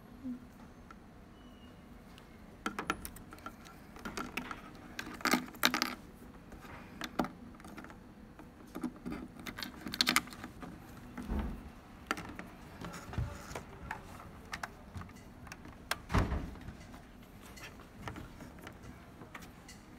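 Irregular metallic clicks, clinks and rattles of well-logging equipment being handled and its cable connectors fitted, with a few dull knocks. The busiest clatter comes about five and ten seconds in, and the heavier knocks come later.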